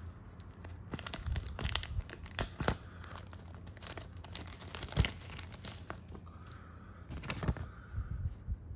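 Thin clear plastic sleeve being peeled open by hand: crinkling and crackling of the film, with a few sharp louder snaps as the sealed flap is pulled apart. It quiets near the end once the flap is open.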